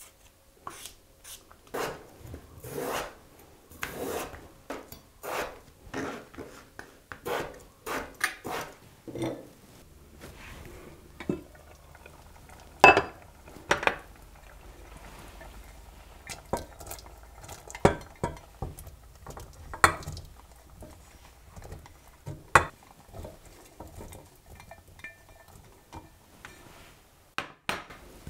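Rhythmic scraping strokes of a vegetable peeler and knife working a potato, for about ten seconds. Then glass bowls and a silicone spatula clink and knock against a stainless steel pot as diced vegetables are tipped in, with a few sharp knocks over a low steady hum.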